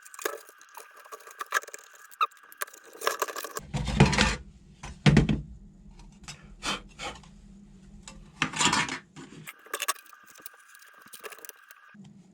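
Small screws and plastic parts of an RC truck clicking and rattling as they are handled during disassembly, with a few louder rustling knocks about four, five and nine seconds in.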